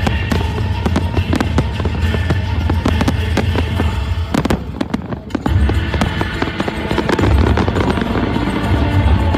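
Fireworks bursting and crackling in rapid succession over loud music, easing briefly about halfway through before picking up again.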